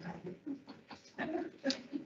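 An indistinct human voice speaking in short, broken phrases.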